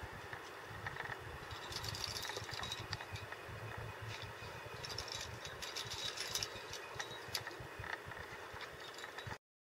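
Wind buffeting the microphone, with the metallic clinking of a climber's carabiners and quickdraws jostling on the harness as he moves up the rock, strongest about two seconds in and again around five to six seconds.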